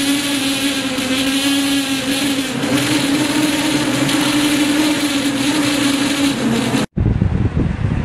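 Typhoon-force wind howling in one steady, wavering tone over a loud rush of wind and rain. It cuts off suddenly about seven seconds in, and a lower rumble of wind follows.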